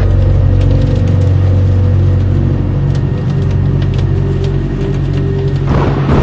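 Car engine and road noise as a steady low hum, with a burst of louder rushing noise near the end.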